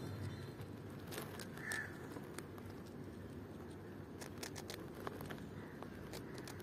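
A palm squirrel nibbling a biscuit held in someone's fingers: faint, scattered small crunching clicks, thickest from about four seconds in as it starts biting. One short call sounds in the background a little under two seconds in.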